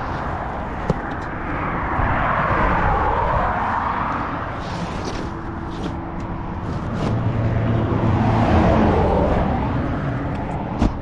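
Road traffic going by: two vehicles pass, the sound swelling and fading about two to three seconds in and again around eight to nine seconds, the second pass carrying a low engine hum. A sharp click about a second in and another, louder one just before the end.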